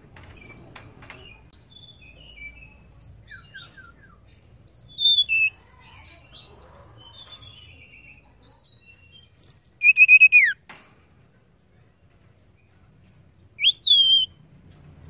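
Blue flycatcher (tledekan) singing. Soft scattered chirps and twitters are broken by three loud phrases of short whistled notes: one about four and a half seconds in, a run of falling whistles around ten seconds, and a rising then falling whistle near the end.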